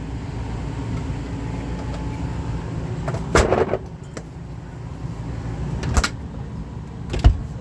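Camper pantry and cabinet doors being opened and shut: a rattling clatter about three and a half seconds in, then two sharp knocks near six and seven seconds, over a low steady rumble.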